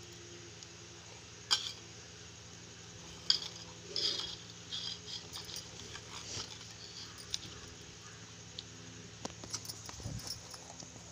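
Metal spoon clinking and scraping against a small stainless-steel bowl: two sharp clinks about a second and a half and three seconds in, then a run of lighter taps and scrapes. A steady low hum runs underneath.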